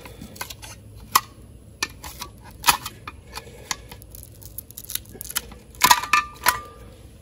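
A chrome badge being pried and worked off a metal motorcycle breather cover where adhesive holds it: a run of sharp metal clicks and scrapes, with a couple of louder, ringing metal clinks about six seconds in.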